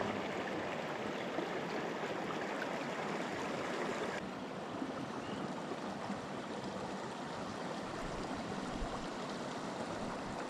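Steady rush of river water flowing.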